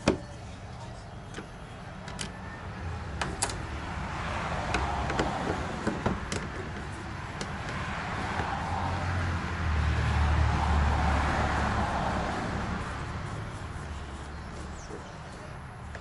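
A passing road vehicle swells up and fades away, loudest about ten seconds in. Over it come a few sharp clicks of a screwdriver working the Phillips screws out of the roof vent fan's lid operator, the loudest right at the start.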